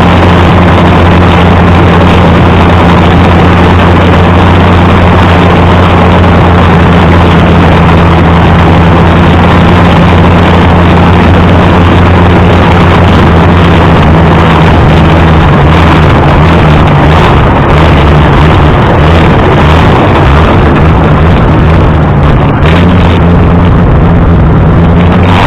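Allis-Chalmers D19 tractor's six-cylinder gasoline engine running steadily and loud, driving a rotary bush hog mower; its pitch wavers slightly in the second half. The carburetor's fuel jet is about half plugged with dirt from the tank.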